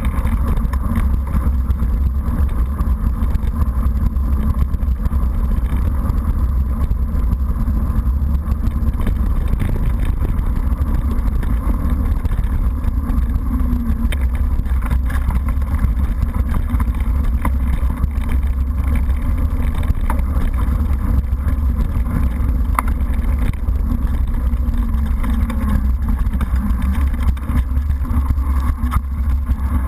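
Mountain bike riding down a rough stony track: a steady, loud low rumble of wind and tyres on gravel on the bike-mounted camera's microphone, with occasional sharp knocks from stones and the bike rattling.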